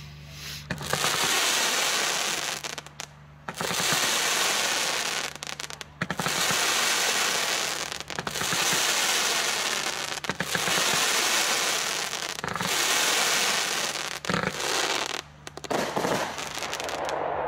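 A 42-shot, 25 mm consumer firework battery firing. Its shots and bursts merge into a long rush of noise about every two seconds, with a few separate sharp cracks near the end.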